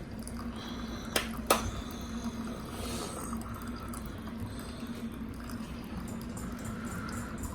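Keurig pod coffee maker brewing: a steady hum with water running through it, and two sharp clicks about a second in.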